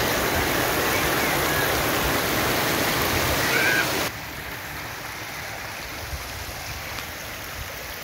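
Rainwater runoff rushing over a cobblestone street in a fast, shallow torrent, making a loud, steady rushing sound. About four seconds in it cuts off suddenly to a much quieter steady hiss.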